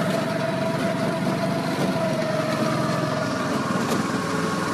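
Go-kart engine running at a steady speed while the kart is driven around the track, a steady hum that holds about the same pitch.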